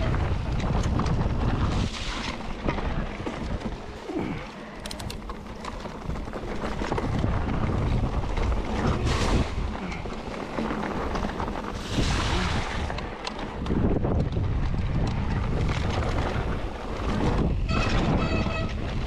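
Wind buffeting the microphone and tyres rumbling over the trail while a mountain bike is ridden, with a few clicks along the way.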